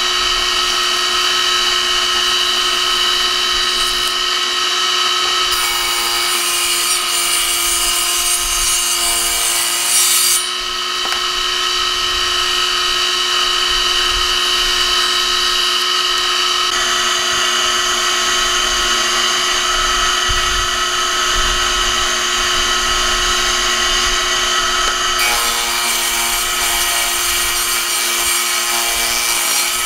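Table saw running with a steady whine as weathered boards are ripped along the fence, the cutting noise swelling about a fifth of the way in and again over the last few seconds.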